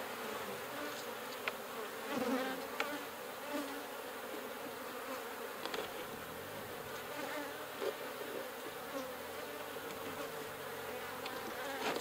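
Honeybees buzzing steadily around an open hive, with a few faint clicks.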